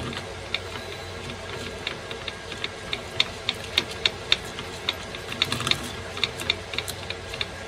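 Light, irregular clicking of metal parts as a clean-and-strip disc and its flange nut are turned by hand onto an angle grinder's spindle, roughly two to four clicks a second.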